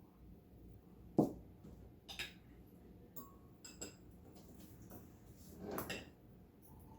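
Utensils and dishes knocking, clinking and scraping as hot casserole is dished up: a sharp knock about a second in, a few ringing clinks around three and four seconds in, and a longer scrape near six seconds.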